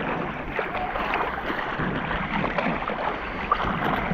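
Seawater sloshing and splashing right at a waterproof action camera held at the surface by a swimmer, a steady crackle of small splashes and bubbles.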